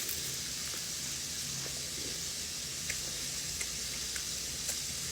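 Flour-dredged chicken frying in hot oil: a steady sizzle with a few faint pops scattered through.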